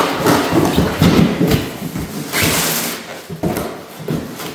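Rummaging in a cardboard box of metal frame parts: packaging rustling and parts scraping and knocking against each other and the cardboard. It dies down to a few clicks near the end.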